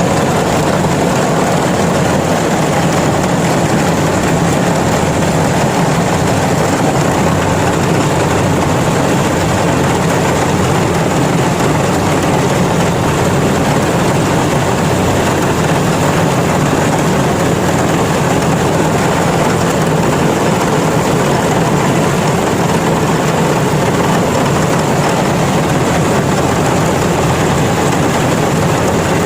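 Yanmar combine harvester running steadily, a dense, unchanging machine noise.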